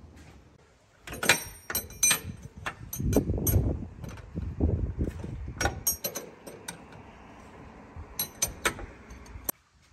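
Metal hand tools clinking and clicking as bolts on a car's rear shock absorber mounts are worked, some knocks ringing briefly. A dense run of rapid clicks and rattling fills the middle few seconds, and the sounds stop abruptly near the end.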